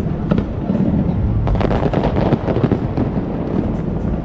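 Fireworks display: aerial shells bursting in a rapid, dense run of bangs and crackles over a continuous low rumble, thickest from about a second and a half in.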